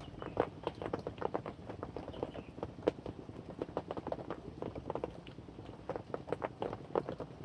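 Raindrops tapping irregularly and fairly quickly near the microphone, over a soft steady rain hiss.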